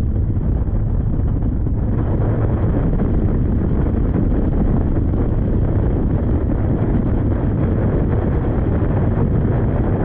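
Steady rushing noise of a Phoenix bass boat running at speed: wind buffeting the microphone over the outboard motor running underneath.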